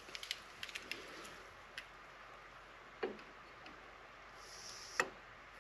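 Faint clicks and taps of a digital caliper being handled and set against an aluminium gauging bar to take a depth measurement: a patter of light ticks in the first second, a soft knock about three seconds in and a sharper click near the end.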